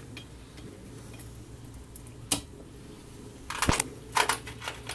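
Small metal hand tools clinking and clicking as Allen keys are picked through on a workbench. There is one click about two seconds in, then a cluster of clinks and knocks in the last second and a half.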